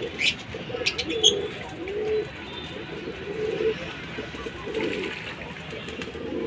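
Domestic pigeons cooing, one low arching coo after another, with a few short high chirps in the first second or so.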